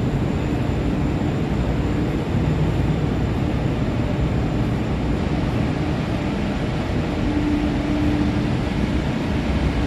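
Steady, loud, low rumbling noise with a faint hum running through it: the background noise on a container ship's deck.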